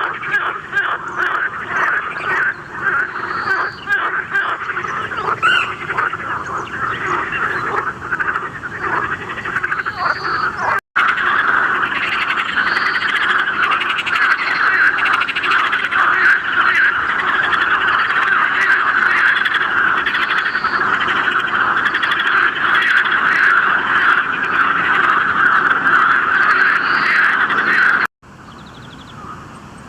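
Dense chorus of many frogs calling together. It breaks off at a hard cut about 11 seconds in, resumes, and cuts again about 28 seconds in to a much quieter scene.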